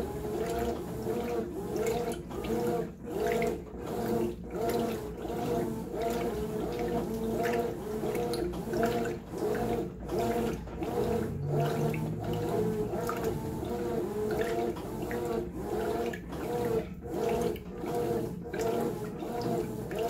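Brastemp top-load washing machine agitating a full tub of water and clothes, the water sloshing and churning in rhythmic surges as the wash action swings back and forth.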